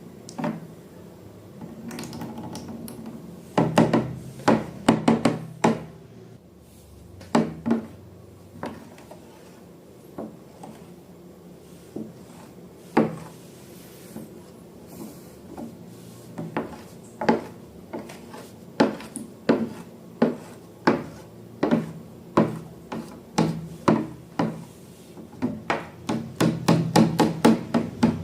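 A series of sharp knocks and taps with some rubbing on a hard surface, irregular at first and coming quickly near the end.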